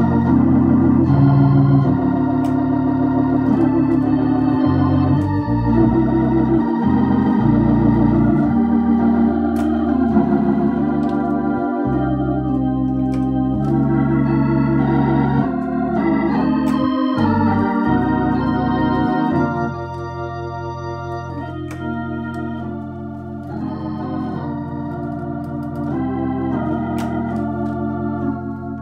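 Viscount Legend Live drawbar organ played through a Tornado T115 valve-amp rotary speaker: sustained chords over a moving bass line. About two-thirds of the way through it turns a little quieter and thinner in the low end.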